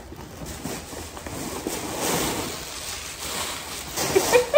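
Tissue paper and a gift bag rustling and crinkling as the paper is pulled out and handled, swelling about two seconds in and again near the end. A brief voice sound comes with the loudest moment near the end.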